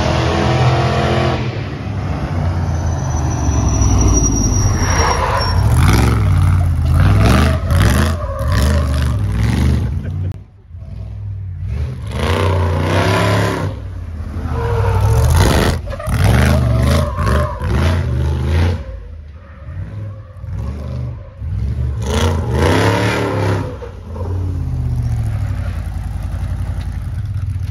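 Off-road race truck's engine revving hard while driven, its pitch climbing and dropping over and over as the throttle is opened and closed, with short lifts off the throttle about ten seconds in and again around twenty seconds.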